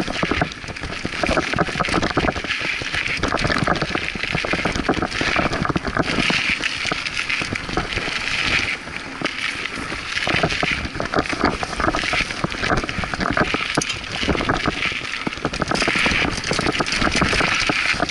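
Scott Aspect 35 hardtail mountain bike riding fast over a dirt and root singletrack: constant rattling and clattering of the frame and parts over bumps, tyre noise on the dirt, and wind on the microphone.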